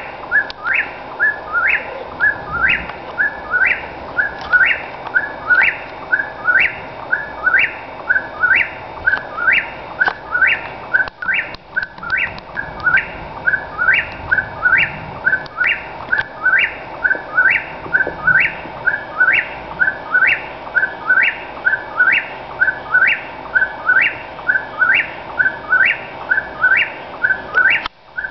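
Whip-poor-will singing its song over and over, about three phrases every two seconds, each phrase ending in a sharp upward note. A steady hum runs underneath.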